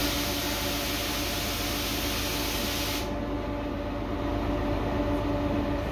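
Steady running noise inside a moving metre-gauge passenger train carriage: a constant hum, with a strong hiss over it for the first three seconds that cuts off abruptly.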